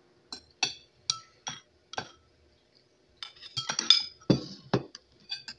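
Metal fork and spoon clinking against a ceramic plate while mixing spaghetti with sauce. A few separate taps come first, then a pause, then a quicker run of clinks.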